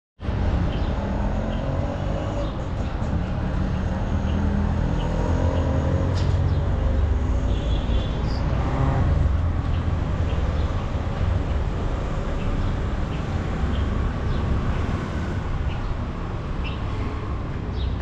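Street traffic noise with a steady low rumble, and a motor vehicle's engine running close by whose pitch shifts as it passes during the first half.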